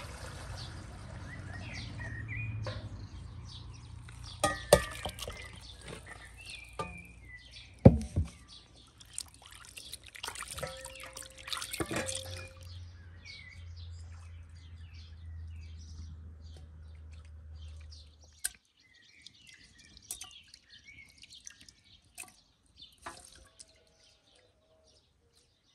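Water poured and splashing, then dripping and sloshing as chunks of raw meat are washed by hand in a basin of water, with a few sharp knocks among it and birds chirping. About two-thirds of the way through it drops to quiet birdsong and small clicks.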